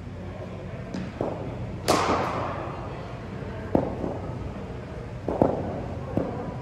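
Cricket balls striking bats and the floor in an indoor net session: about half a dozen sharp knocks and thuds at uneven intervals. The loudest comes about two seconds in and rings on in the hall.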